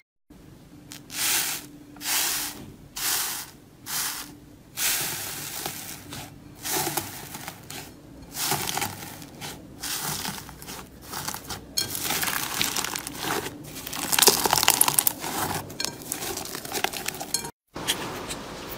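Crunchy slime being squeezed and pressed by hand, crinkling and crackling. It starts as a series of separate crunches, a little under one a second, then turns into a denser, near-continuous crackle.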